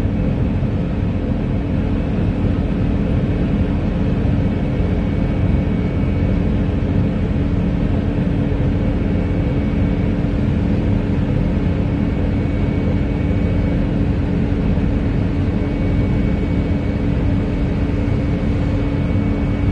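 Airbus A220 airliner taxiing, its jet engines running steadily at low power, heard as a deep rumble with a steady hum.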